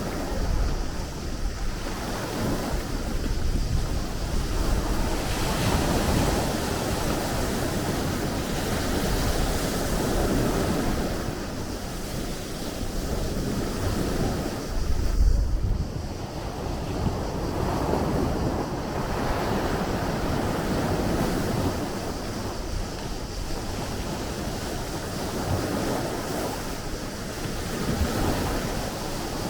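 Sea waves washing in and drawing back, the surf swelling and easing every few seconds. Low gusts of wind rumble on the microphone, strongest about fifteen seconds in.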